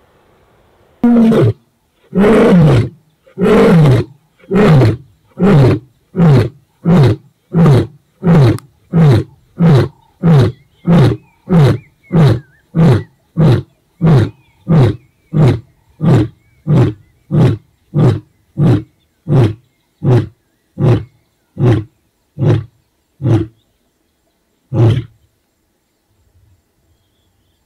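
Male white lion roaring a full territorial bout at rival males. There are three long, deep roars, then a long run of short grunting roars less than a second apart that grow shorter and weaker, with one last grunt after a short pause.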